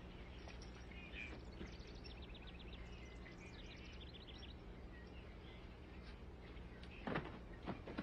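Faint quick trills of high chirps, twice in a row, over a steady low hum, with a couple of soft knocks about seven seconds in.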